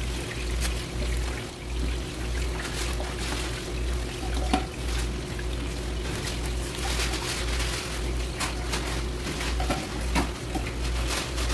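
Broth boiling hard in a wok, bubbling steadily with many small pops and ticks over a low throbbing hum; one sharper click about four and a half seconds in.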